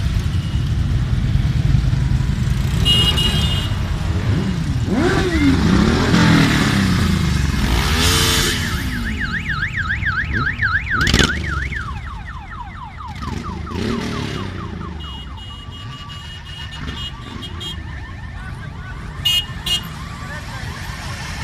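Parade of motorcycles passing slowly, a low engine rumble with several bikes revving up and down. About halfway through, an electronic alarm-style warble sounds for about two seconds, going up and down about four times a second, and near the end there are two short horn beeps.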